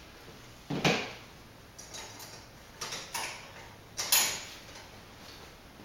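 Metal hand tools clinking: a socket and wrench being handled and fitted to a 14 mm nut. About five sharp clacks, the loudest about a second in and about four seconds in.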